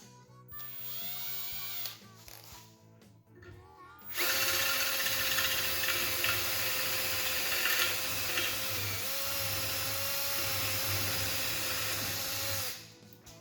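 Battery drill with a 7/32-inch bit drilling out a rivet in a flywheel: a short run with a rising whine about half a second in, then steady drilling under load for about nine seconds from about four seconds in, stopping near the end.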